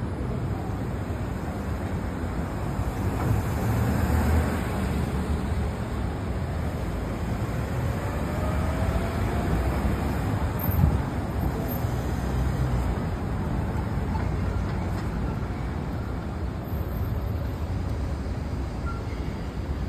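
Street traffic noise: a steady low rumble of vehicles on the surrounding city streets, with one short thump about eleven seconds in.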